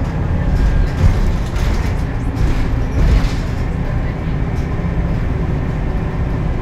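Scania K280UB bus with a ZF Ecolife automatic gearbox heard from inside the cabin while driving, a steady low engine and driveline rumble with louder jolts about a second in and again about three seconds in. The uploader calls this bus unhealthy sounding.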